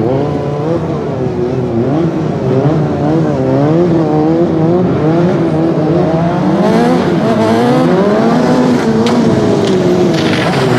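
Sport motorcycle engine revving up and down as the throttle is worked to hold the bike in wheelies, its pitch rising and falling every second or so.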